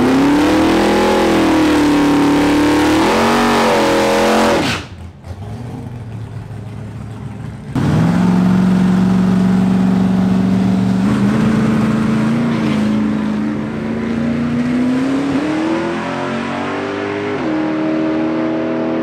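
Drag-race cars' engines revving hard with a wavering pitch; the sound drops off abruptly about five seconds in. After a quieter stretch of nearly three seconds, loud engine sound returns suddenly, holding a steady pitch that climbs slowly over the rest.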